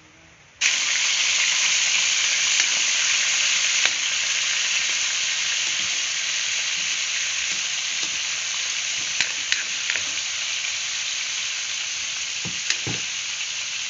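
Chicken pieces frying in hot oil in a pan. The sizzle starts suddenly about half a second in and carries on loudly, easing a little, with a few light clicks of a utensil against the pan near the end.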